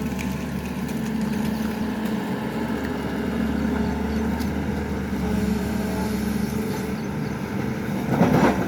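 SANY excavator's diesel engine running steadily, with a brief louder rushing burst near the end.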